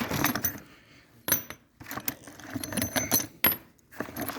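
Sharp metallic clinks and knocks, a few in a row with short ringing: metal hardware being handled and fitted while bolting the dock step frame in place.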